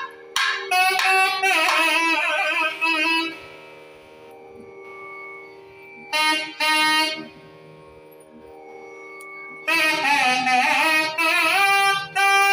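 Nadaswaram playing a Carnatic melody over a steady drone, in three phrases of sliding, ornamented notes; the drone carries on alone between the phrases. A couple of sharp drum strokes sound at the very start.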